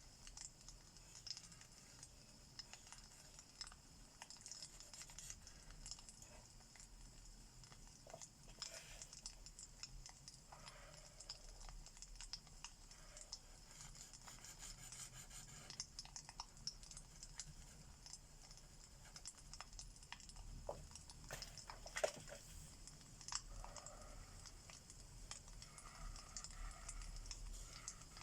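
Faint crackling of a wood fire: scattered soft pops and snaps over a steady hiss.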